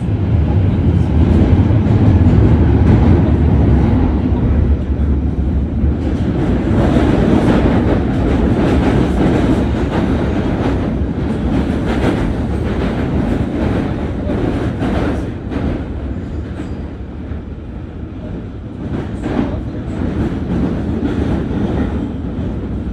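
London Underground train running sound: a steady rumble with rapid clicking of wheels over rail joints, loudest in the first few seconds and easing a little later on.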